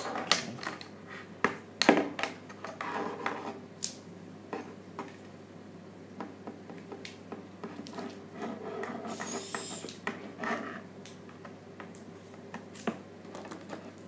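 Handling noise of plastic iPad dock-connector cables and adapters: scattered clicks and light knocks as connectors are unplugged and picked up, the loudest in the first two seconds, with a short hiss about nine seconds in.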